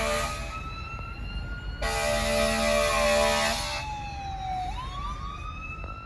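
Fire engine's siren wailing, rising and falling in pitch, with the truck's air horn blasting over it: one blast ending about half a second in, and a second, longer blast of about two seconds in the middle. The siren then carries on alone and grows fainter toward the end.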